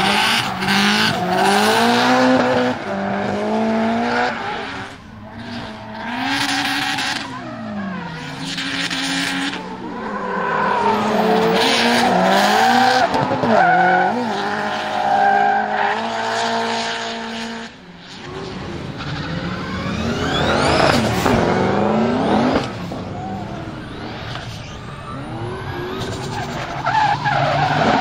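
Subaru Impreza drift car's engine revving up and down hard as it slides, with tyres squealing and hissing. After a sudden break about two-thirds of the way in, a second drift car's engine revs with a long climb in pitch over tyre squeal.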